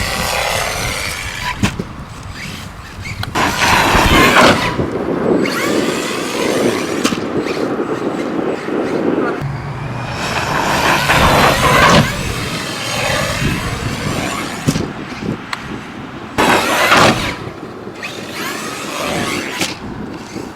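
Arrma Kraton 4S V2.5 RC monster truck driving in several bursts: its brushless electric motor whining up and down in pitch with each throttle punch, along with tyre and chassis noise.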